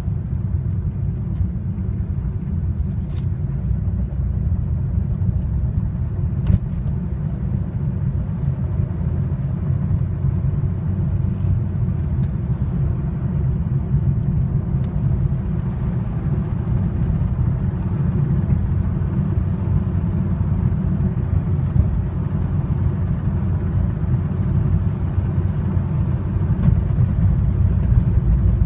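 Mitsubishi Lancer IX's 1.6-litre four-cylinder engine running under load, a steady low rumble with a few short sharp clicks. The owner is chasing an unexplained knock that appears under load.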